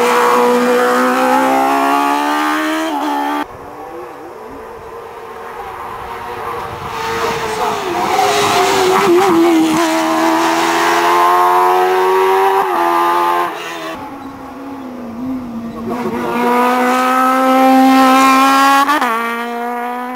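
Sports-prototype race car engines pulling hard uphill, the pitch climbing steadily in each gear with a drop at each upshift. The engine note breaks off abruptly twice and a different car picks up.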